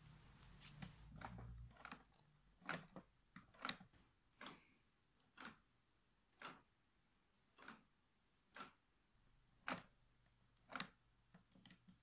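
Near silence with faint, sharp ticks at a steady pace of about one a second. There is a little soft low rumble in the first two seconds.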